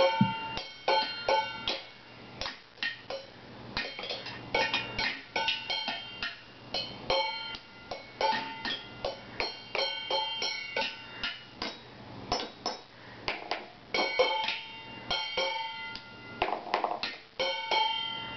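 Stainless steel pots and pan lids beaten with drumsticks as a makeshift drum kit: fast, irregular flurries of hits, each ringing with a bright metallic tone, broken by short pauses.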